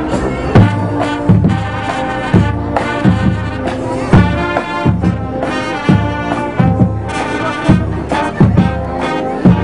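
Marching band playing: brass, including sousaphones, sounding held chords over a steady low beat.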